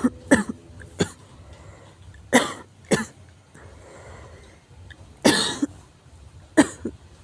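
Severe coughing: about seven short, harsh coughs in irregular bunches, the longest about five seconds in.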